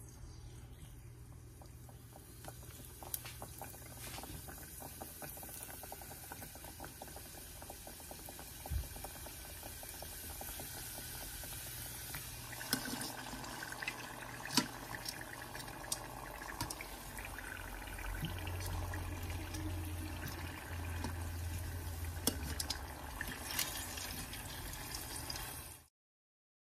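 Plantain turon deep-frying in a stainless steel pot of oil, the oil sizzling steadily, with occasional sharp clicks of metal tongs against the pot. The sound cuts off abruptly just before the end.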